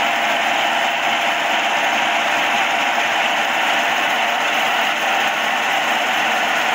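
Vertical milling machine running steadily as its cutter skims the gasket face of a cylinder head, resurfacing the head. The machining noise is continuous and even.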